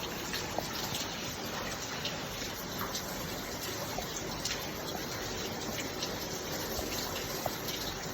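Heavy rain falling steadily: a dense, even wash of water noise with scattered sharp drip and splash ticks.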